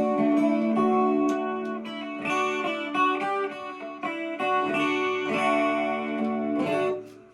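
Electric guitar, an Epiphone SG Special through a Vox MV50AC amp, playing out of a 10-inch speaker cabinet in a clean tone. Chords and single notes ring out, then die away near the end.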